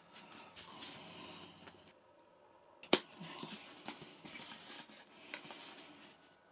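Hands handling the two halves of a foam model-aircraft tailplane: faint rubbing and creaking of foam and plastic, with one sharp click about three seconds in and a few lighter clicks after it.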